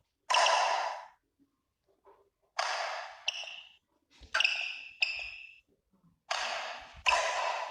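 Badminton rackets striking a shuttlecock in a rally: seven sharp hits a second or less apart, each ringing on briefly in the hall.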